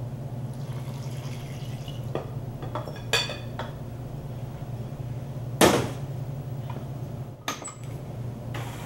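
Whisked egg-and-bourbon mixture poured into a stand mixer's bowl: a few light clinks of the container against the bowl, one ringing briefly, then a loud knock a little past halfway and a smaller one about two seconds later, over a steady low hum.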